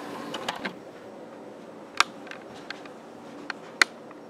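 A few separate sharp clicks over a quiet room hum as a disc is loaded into a DVD player's tray, the loudest click about two seconds in.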